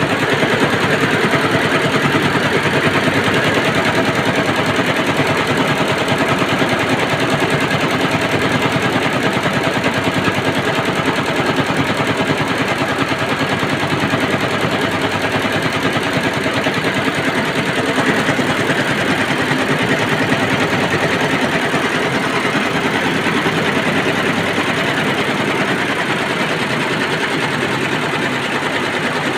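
Twelve-head computerized embroidery machine running, its needles stitching in a fast, steady clatter.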